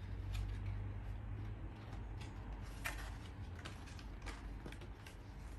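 Scattered light clicks and rustles of hands handling a drone's monitor hood and its packaging, over a steady low hum.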